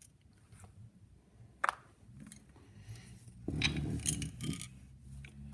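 Metal parts of an Amberola 30 phonograph mechanism being handled: a sharp click about a second and a half in, then a second or so of scraping and clinking of metal on metal.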